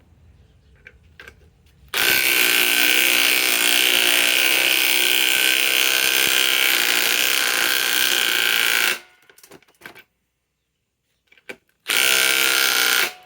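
DeWalt Atomic DCF921 cordless impact wrench hammering steadily for about seven seconds, stopping abruptly, then a second burst of about a second near the end.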